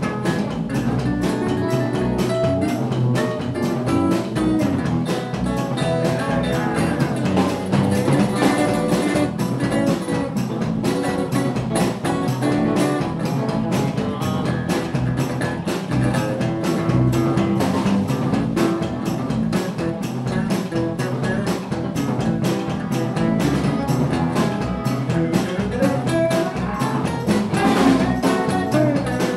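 Live electric blues band playing: two electric guitars, bass guitar and drum kit, with a steady beat.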